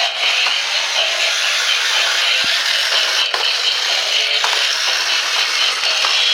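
Battery-powered robot T. rex toy running, its small gear motor whirring steadily with a rattle and scattered small clicks.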